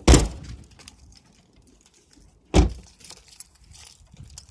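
Two heavy thumps about two and a half seconds apart, with light clicking and jingling between and after them.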